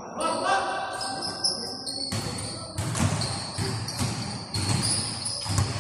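Basketball game in a gym: the ball bouncing on the court in repeated thuds from about halfway in, with high squeaks over it.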